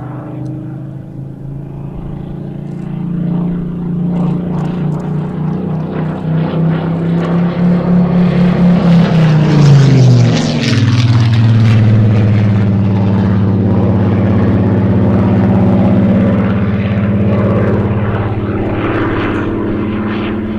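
Supermarine Spitfire's piston engine flying past overhead. The engine note rises in loudness, then drops sharply in pitch about nine to ten seconds in as the plane passes, and runs on steadily at the lower pitch.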